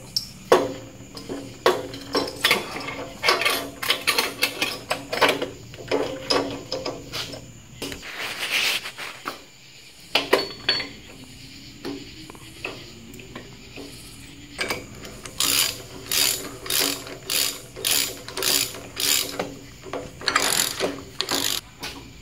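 Ratchet wrench clicking in quick runs with short pauses as the pinion nut is tightened on the Dana 30 front differential's yoke, drawing the pinion back down into the housing.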